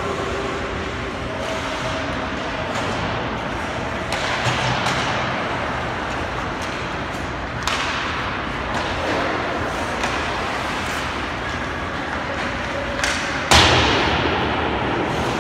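Ice hockey play in an indoor rink: skates on the ice and sticks and puck knocking, over echoing arena noise. A loud, sharp bang comes near the end and rings out through the rink.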